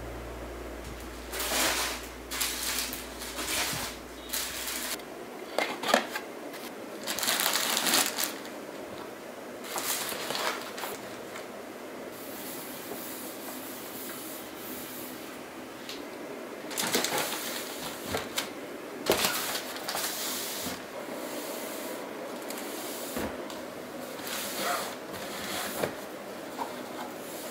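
Fabric storage boxes being handled and shifted, and a cabinet shelf being wiped with a cloth: irregular bursts of rubbing and rustling with a few sharp knocks. A steadier scrubbing comes in the middle, and near the end a box slides onto the shelf.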